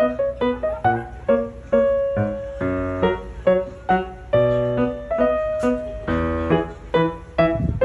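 Background music: a light piano melody of separate, sharply struck notes, about two or three a second.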